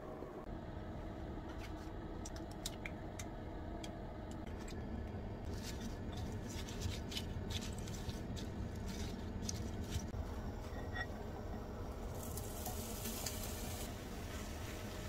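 Chopsticks stirring egg, flour and shredded cabbage in a glass bowl, with a run of quick clicks and scrapes. About twelve seconds in, a hiss of sizzling lasts about two seconds as the cabbage goes into the hot frying pan.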